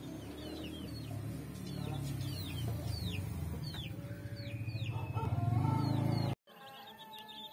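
Chickens, with repeated short, high peeps that fall in pitch, typical of chicks, over a low rumbling background. About six seconds in the sound cuts off abruptly, then the peeping goes on more quietly.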